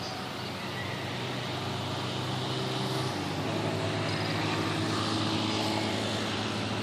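Motor traffic in a city street: a steady low engine drone, shifting in pitch about three seconds in and growing slowly louder, over a general haze of street noise.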